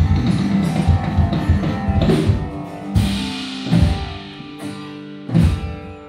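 Live band of acoustic guitars, bass and a drum kit, the drums played inside a drum shield enclosure. Steady full-band playing gives way about two seconds in to held chords, broken by a few accented drum and cymbal hits.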